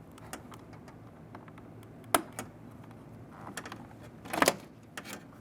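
Sharp plastic clicks and light rattling from a Jeep Grand Cherokee rear door panel's handle rods and retainer clips being popped off: one loud click about two seconds in and a short burst of clicks near the end.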